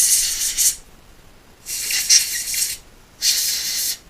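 Can of compressed air spraying in three short hissing bursts, blowing dust off the drive cable connectors to clean the contacts.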